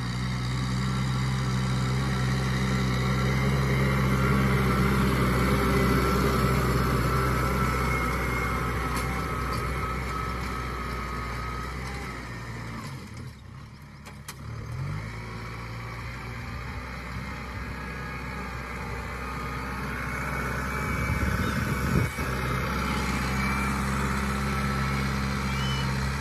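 Farm tractor engine running steadily as it ploughs, the front blade pushing soil and a disc plough turning the ground behind it. The sound dips briefly about halfway through, then the engine picks up again.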